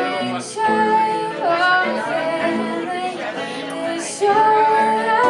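Fourteen-year-old girl singing with long held, gliding notes over acoustic guitar accompaniment.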